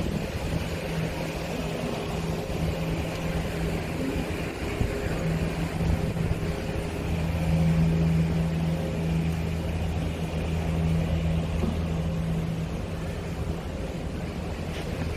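A low, steady engine drone that grows louder about halfway through and eases off again.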